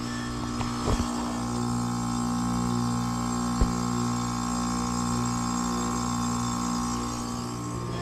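Carrier heat pump outdoor unit running in heat mode, a steady compressor and fan hum with an even electrical drone. Two brief knocks, about a second in and about three and a half seconds in.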